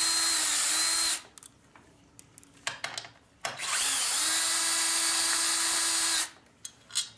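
Power drill-driver running in two bursts, one ending about a second in and one of nearly three seconds, backing out the screws of a motorcycle's plastic chain guide. A few light clicks and taps sound between and after the bursts.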